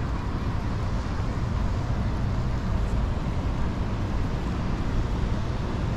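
Steady outdoor background noise with a heavy low rumble and no distinct events.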